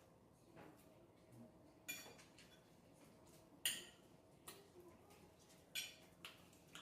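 Faint clinks and clicks of tableware during a meal, scattered and short, the three loudest about two seconds apart.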